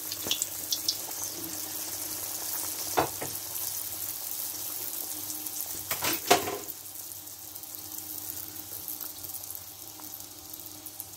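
Stuffed yeast-dough donuts deep-frying in hot oil: a steady sizzle with small crackling pops. There are two sharp knocks, about three and six seconds in, and the sizzle eases after the second.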